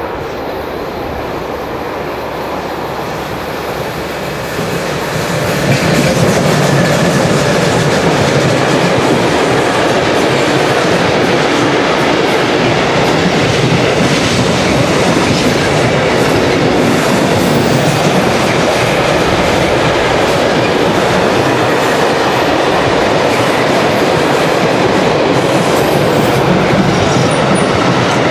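Electric-hauled intermodal container freight train passing close by, its wagons rolling steadily over the track. The noise grows louder about five seconds in as the train comes alongside, then holds loud as wagon after wagon goes by.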